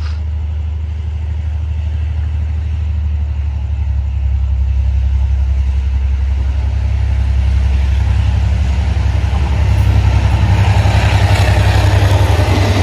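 EMD G22-CU diesel-electric locomotive, its 12-cylinder two-stroke EMD 645 diesel running with a steady low hum that grows louder as it approaches. Near the end it passes close at speed, and a rush of wheel and rail noise rises as the freight wagons follow.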